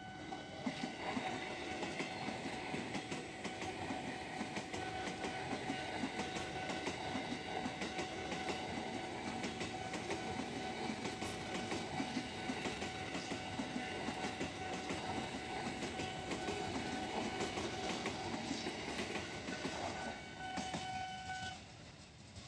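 JR 205-series electric commuter train running past, its wheels clicking over the rail joints, with a steady high tone throughout that stops shortly before the end as the noise dies down.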